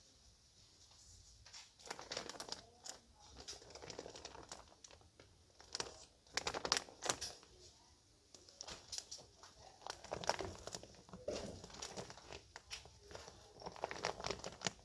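Clear plastic bags crinkling as they are handled and pressed, in irregular crackly bursts starting about two seconds in.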